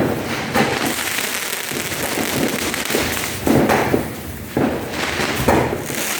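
Fireworks going off: a run of sudden bangs at irregular intervals over a steady crackling haze, the loudest at the very start and a cluster about three and a half seconds in.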